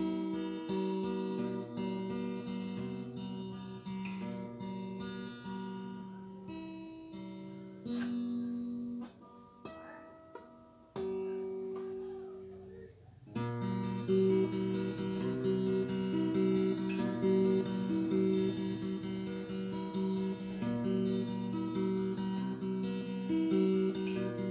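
An acoustic guitar being played in a repeating pattern of ringing notes. It thins out to a few quieter notes about nine seconds in, then comes back fuller and louder a little past halfway.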